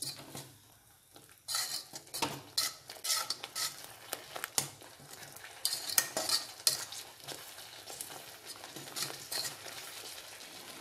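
Metal spatula stirring a thick onion-tomato masala in a metal kadhai, scraping and clinking irregularly against the pan from about a second and a half in, with the frying paste sizzling faintly underneath.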